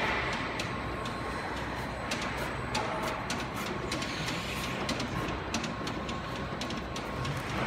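Atecmaa MCUB1 rotary-arm stretch wrapper running, its arm carrying the film roll around the pallet: a steady mechanical noise with many light clicks through it and a faint steady tone.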